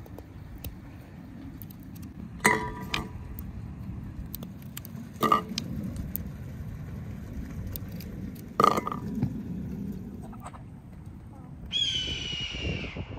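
Scored chestnuts dropped one at a time into an enamel bowl: three sharp clinks, each ringing briefly, a few seconds apart. Near the end a chicken gives one high call of about a second that falls slightly in pitch.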